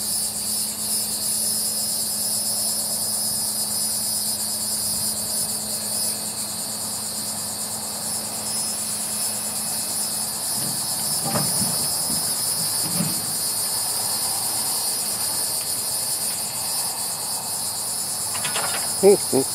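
Steady high buzzing of an insect chorus, with a low engine hum from the grapple truck under it that fades out about halfway. A few soft knocks follow a little past the middle as the bundle of concrete ties is set down on the stack.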